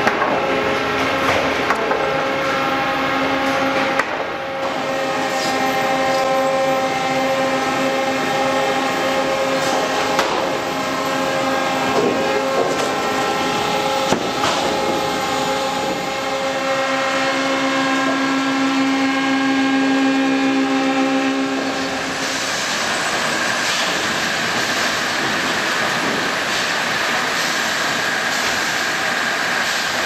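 Sawmill machinery running: a steady motor whine of several pitches, with occasional sharp knocks of lumber. About 22 seconds in, the whine gives way to a broader, noisier running sound.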